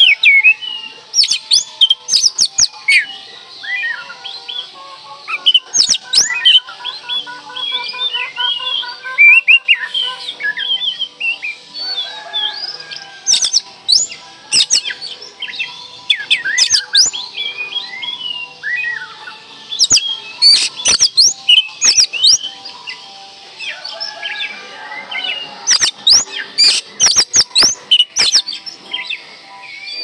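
Oriental magpie-robin (kacer) singing continuously: a loud, varied song of short whistles, quick trills and sharp chipping notes.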